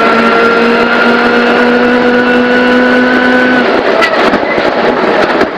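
Ford Fiesta WRC's 1.6-litre turbocharged four-cylinder engine running at high revs, a steady note climbing slowly as the car runs flat out, heard from inside the cabin. About four seconds in the note breaks off, with a few sharp cracks.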